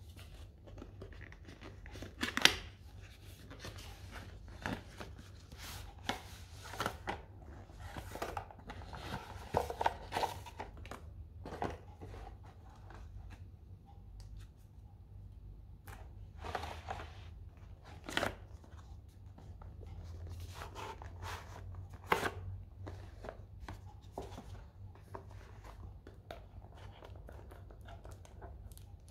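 Cardboard retail box and card inserts of a Nokia 2.3 smartphone handled and opened by hand: irregular taps, scrapes and rustles of card, with a sharp knock a couple of seconds in and another about three-quarters of the way through.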